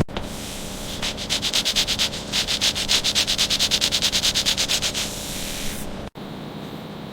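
Rapid back-and-forth scrubbing strokes on a surface, about nine a second, starting about a second in and stopping near the five-second mark.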